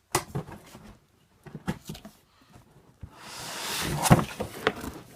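Cardboard shipping box being handled and opened: several knocks and taps, then about a second of scraping, tearing noise that grows louder and ends in a loud thump, with another knock just after.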